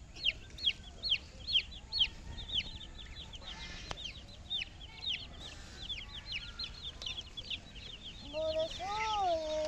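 Baby chicks peeping: a steady stream of short, high, falling peeps, several a second. Near the end a lower, drawn-out voice rises and falls over the peeping.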